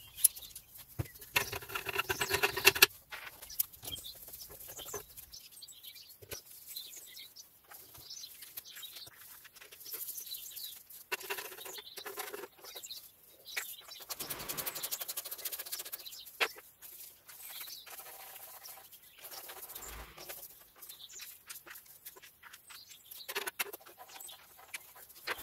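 Hand ratchet clicking and a socket extension rattling against metal as the transmission sump bolts of a ZF 8HP70 gearbox are snugged up by hand, in short bursts of rapid clicks and squeaks with pauses between.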